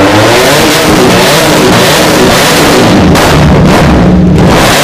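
Motorcycle engine being revved hard and repeatedly, its pitch rising and falling with each blip of the throttle.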